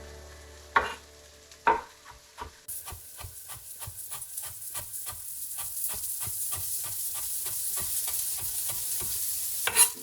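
Food frying and sizzling in a pan. Two sharp knocks come in the first two seconds, then the sizzle starts suddenly about two and a half seconds in, full of small crackles. There is another sharp knock near the end.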